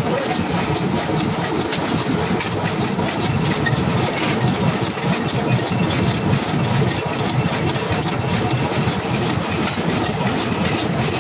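Motor-driven pan-forming machine running steadily as sheet-iron pan blanks are shaped on it: a continuous loud mechanical hum with light metallic ticking over it.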